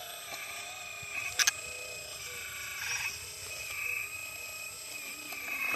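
Small electric motor and hydraulic pump of a 1/12-scale RC excavator whining steadily while it digs, the whine swelling briefly a couple of times as the bucket is loaded, with one sharp click about a second and a half in.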